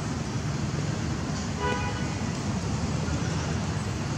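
Steady low outdoor rumble with one short, flat-pitched toot about one and a half seconds in.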